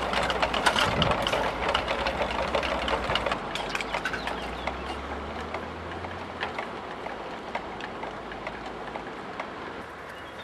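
Windmills made from plastic bleach bottles spinning in the wind, a dense clatter of many fast small clicks and rattles. Wind rumbles on the microphone until about six seconds in, and the clatter grows quieter towards the end.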